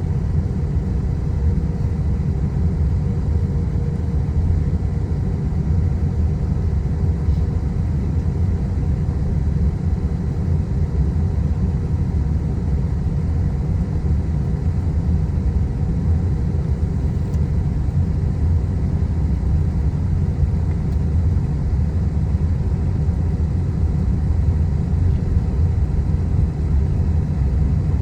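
Boeing 777 taxiing: a steady low rumble from its engines at low power, with a faint steady whine above it and no change in level.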